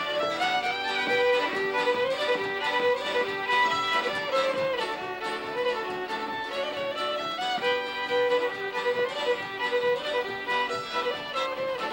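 Background music: a fiddle playing a continuous tune.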